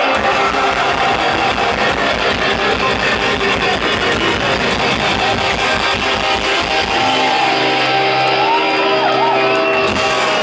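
Live punk rock band playing distorted electric guitars, bass and drums at a fast, steady beat. About seven seconds in the drumming stops and a held chord rings out, the close of the song.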